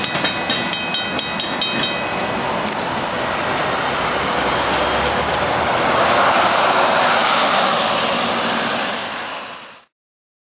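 Clickety-clack of the last freight cars' wheels over the rail joints, about four clicks a second, dying away about two seconds in. Then a steady vehicle noise that swells as an Enviro 500 double-decker bus drives past close by, before the sound cuts off suddenly near the end.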